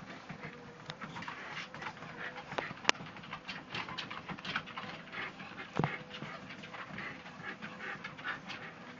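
Two Shetland sheepdogs trotting on a running treadmill: dog panting and the quick patter of paws on the belt over a steady hum from the treadmill. A sharp click comes about three seconds in and a knock near six seconds.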